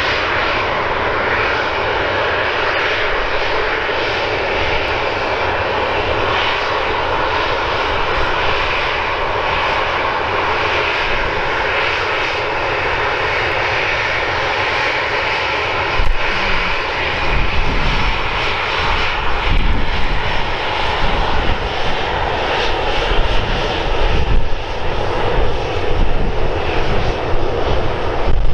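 Boeing 737 airliner's twin turbofan engines running steadily as it taxis and lines up. About halfway through, a louder, more uneven deep rumble comes in as thrust builds for the take-off roll.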